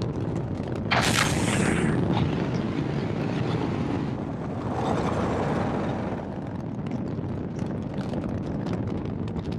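Saturn V rocket launch: the first stage's five F-1 engines give a continuous deep rumble laced with crackling. A sudden louder blast comes about a second in.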